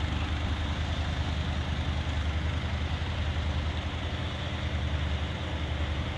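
Propane-fuelled forklift engine running with a steady low hum as the forklift backs out carrying a truck frame on its forks.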